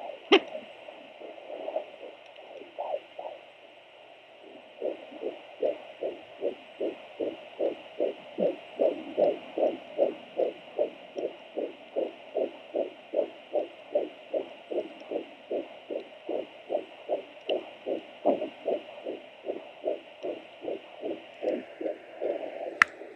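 Fetal heartbeat through a Sonoline B handheld fetal Doppler: a fast, even pulse of about two and a half beats a second over a steady hiss. It settles into a clear rhythm about five seconds in, after a few irregular pulses. A sharp click comes near the end.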